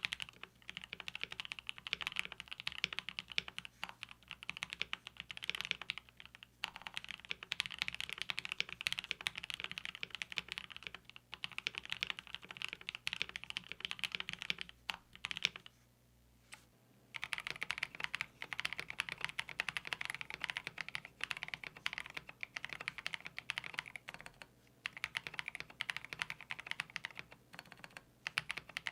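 Continuous typing on a KBD67 Lite R2 65% custom mechanical keyboard fitted with Gateron Black Ink linear switches. The typing stops for about a second and a half a little past the middle, then resumes on NovelKeys Cream linear switches.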